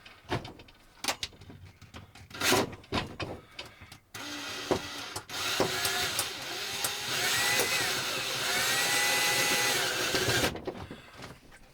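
A few light clicks and knocks of hardware being handled, then a small electric screwdriver or drill runs for about six seconds, its motor whine rising and falling in pitch as it drives a screw through a metal wire clamp into a wall anchor.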